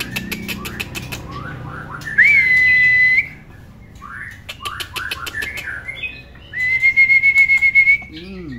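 Juvenile male white-rumped shama calling in its cage: quick dry clicks and short falling chirps, with two long steady whistles, one about two seconds in and one near the end.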